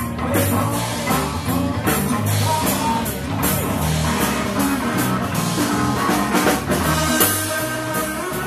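Live rock band playing: electric guitar, electric bass and drum kit, with a regular drum beat under a moving bass line.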